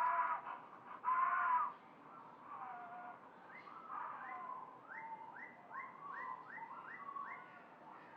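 Pterosaur (Quetzalcoatlus) creature call effect built from bird calls such as goose honks and hawk screeches: two loud honking calls in the first second and a half, softer calls after, then from about five seconds in a quick run of about seven short calls, each dropping in pitch.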